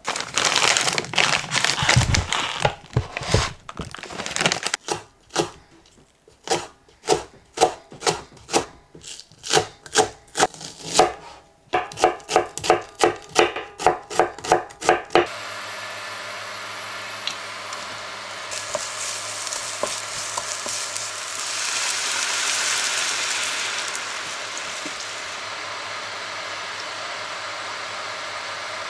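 Chef's knife chopping green onions and onion on a wooden cutting board in a steady rhythm of sharp strokes, about two a second and then faster. About halfway through, the chopping gives way to a steady hiss of a creamy sauce simmering in a frying pan on an induction hob.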